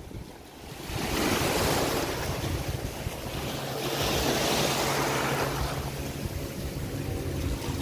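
Small sea waves washing in over rocky shallows, swelling twice, about a second in and again about four seconds in, with wind buffeting the microphone.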